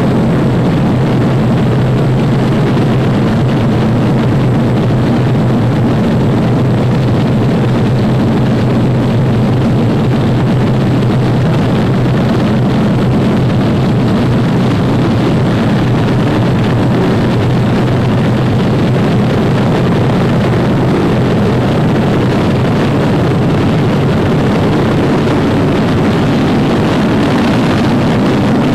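Steady drone of B-25 Mitchell bombers' twin radial piston engines in flight: a low hum under a broad rushing noise.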